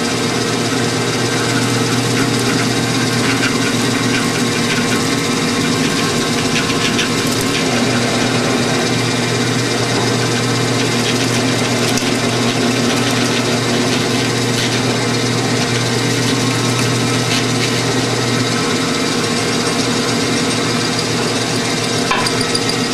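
Drill press motor running steadily at about 450 RPM while a hollow-chisel mortising bit is fed down into wood again and again, with occasional scraping knocks from the chisel cutting. The chisel has been waxed with beeswax and is cutting freely, no longer sticking.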